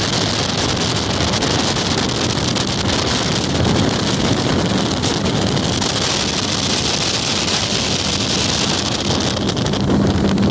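Xpress bass boat running at speed across the lake: a steady, loud rush of wind buffeting the microphone over the outboard motor and the hull on the water. A low steady hum comes through near the end.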